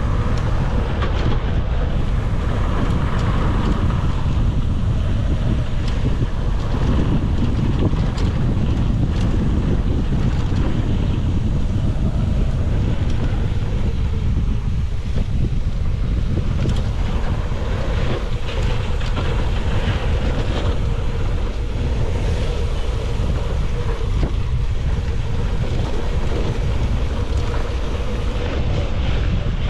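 Wind buffeting an action camera's microphone during a mountain-bike ride: a loud, even rumble with scattered clicks and rattles.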